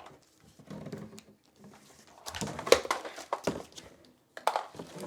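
Plastic vacuum cleaner parts being handled and fitted together: a soft rustle, then a run of irregular sharp clicks and knocks, and another click near the end.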